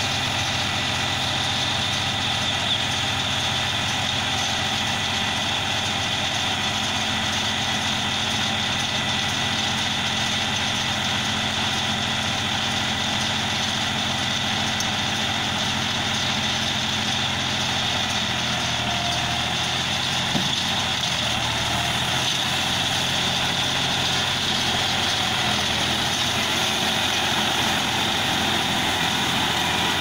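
New Holland tractor's diesel engine running steadily, together with the tractor-driven Gomadhi mini round baler it tows through loose straw.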